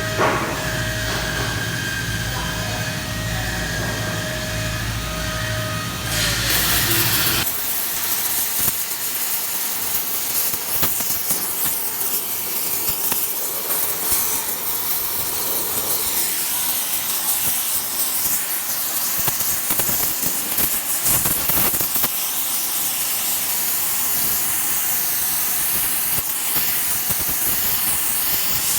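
A steady hum with held tones for about the first seven seconds, then a loud, even hiss with fine crackling from the welding of hardened steel.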